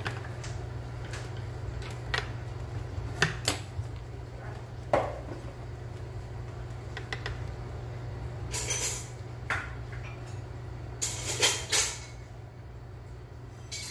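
Metal mini bundt cake pan knocking and clattering against a wire cooling rack as it is flipped and tapped to turn out the cakes: scattered sharp knocks, with a louder cluster near the end. A steady low hum runs underneath.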